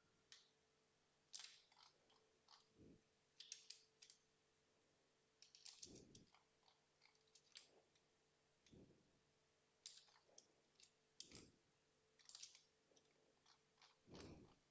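Near silence with a faint steady hum, broken by many small scattered clicks and, every few seconds, a soft low thump.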